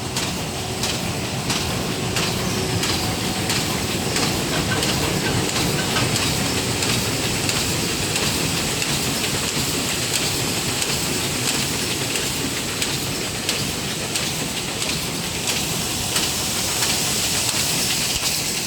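High-speed paper bag making machine running at speed: a steady mechanical clatter with a regular beat of faint ticks.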